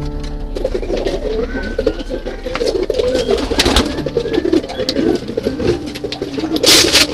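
Several domestic pigeons cooing together in a small loft, their overlapping calls going on without a break, with scattered light clicks and a loud burst of wing flapping near the end.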